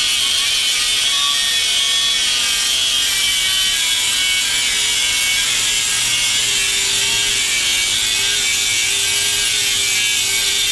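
Power tool running steadily under load: a continuous high hiss with a faint steady whine, as of a grinder working on metal.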